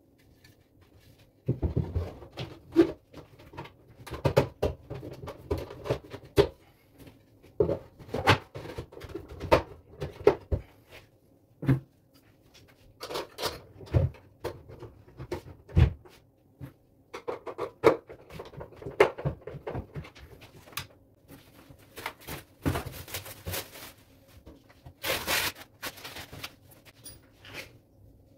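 Irregular knocks, clicks and rubbing from wood-effect panels of a wall-hung cabinet being handled and its mirror door being fitted, with a couple of longer scraping sounds near the end.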